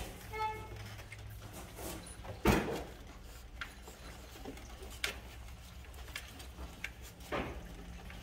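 A Rottweiler puppy gives one short whine about half a second in. Then come a few scattered knocks and bumps as the puppies move about the wooden box, the loudest about two and a half seconds in, over a steady low hum.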